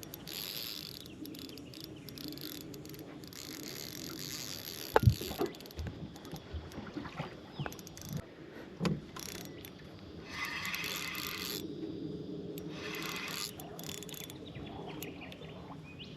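Fishing reel being wound in short spurts while a hooked small mulloway is played on the line, with a few sharp knocks, the loudest about five seconds in and another near nine seconds.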